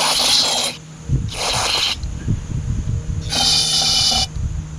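Three short bursts of aerosol parts cleaner hissing out of the can's straw into a small-engine carburetor to blow it clean. A low rumble runs under the second half.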